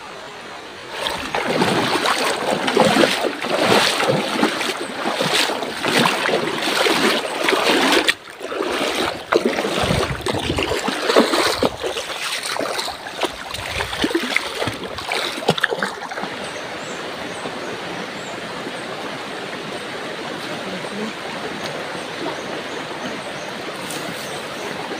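Footsteps splashing and wading through shallow river water, irregular and loud. A little past halfway the splashing stops, leaving the steady rush of the flowing river.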